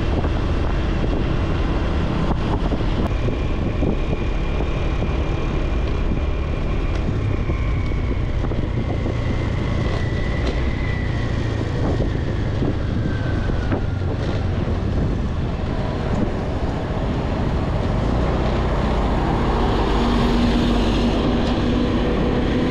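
Wind buffeting the microphone over the engine and road noise of a motorbike on the move, loud and steady. A faint high whine slides down in pitch midway through.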